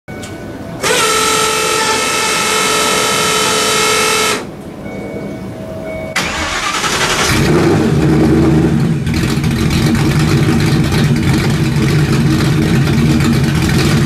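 A loud steady tone with many overtones holds for about three and a half seconds. About six seconds in, a Ford Mustang GT's V8 cranks and starts, then settles into a loud, steady idle through its dual exhaust.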